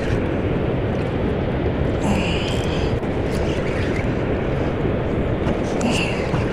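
Steady roar of water pouring through an open dam spillway, a continuous rushing noise with no change in level.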